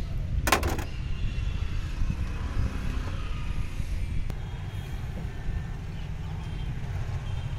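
Steady low rumble of a running engine, with a short clatter of sharp clicks about half a second in.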